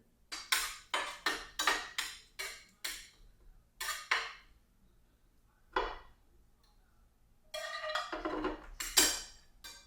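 Metal cookware and utensils clanking against pans: a quick run of sharp knocks, a couple of single knocks, then a burst of clatter near the end.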